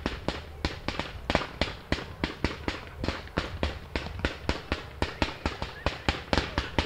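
Fireworks show with a fan cake firing comets: a rapid, irregular string of sharp launch shots, several a second, each with a short echo.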